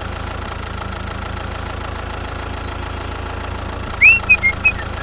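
Small motor running steadily with a low hum. About four seconds in, a short rising whistle and a few brief chirps.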